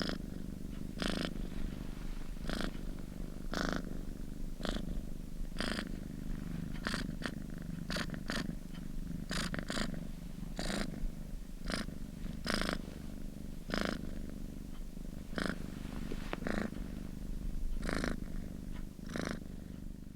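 A kitten purring steadily close to the microphone, with a short breathy rasp about once a second.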